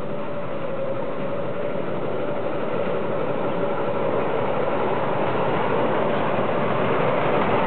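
Petrol engine of a Class 47-style miniature-railway locomotive running steadily as it pulls its carriages along the track, with a constant hum through it. It grows gradually louder as the train draws near.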